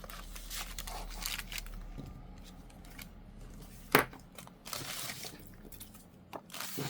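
Paper and packaging rustling and crinkling as small stationery items are handled and packed back into a cardboard box, with one sharp knock about four seconds in.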